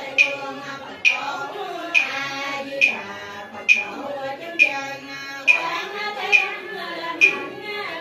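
Voices chanting a Cao Đài funeral prayer in a slow sing-song, kept in time by a sharp struck percussion beat a little more than once a second, nine strokes in all.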